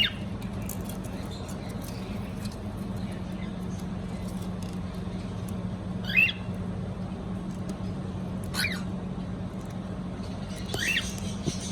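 Cockatiel giving short chirping calls, three or four of them a few seconds apart, over a steady low hum.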